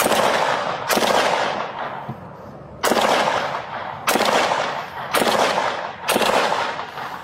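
Six gunshots in a slow, uneven series, loud and distorted on a body-worn camera microphone, each followed by a long echoing tail.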